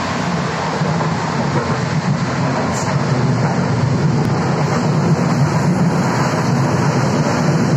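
Budapest Millennium Underground (M1) railcar running through the tunnel, heard from inside the carriage: a steady rumble of wheels and running gear with a broad hiss, slowly getting a little louder.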